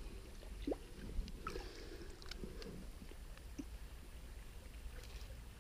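Muffled water sloshing and gurgling with scattered small clicks and knocks as an arm feels along under tree roots in the riverbank, heard through a camera held half-submerged at the water's surface.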